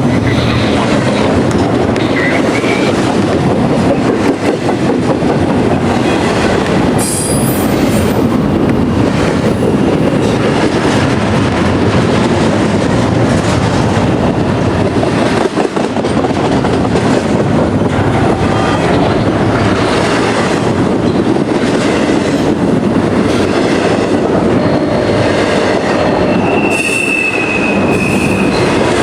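Loaded freight cars rolling past on steel rails: a steady, loud rumble and clatter of wheels and trucks, with a short high wheel squeal near the end.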